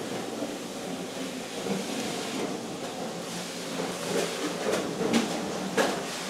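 Small air blower running steadily, pushing air through a pipe into a charcoal smelting fire. A few sharp knocks and clatters come near the end.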